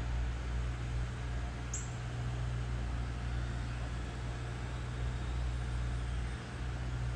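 Steady low rumble with an even hiss of outdoor ambience, and one brief high squeak about two seconds in.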